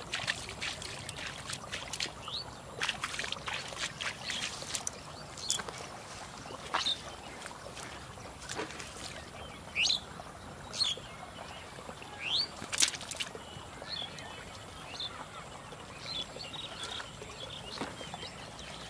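A small fish thrashing in a shallow puddle of water on grass as it is caught by hand: a run of short, sharp splashes and slaps, the loudest about ten and thirteen seconds in.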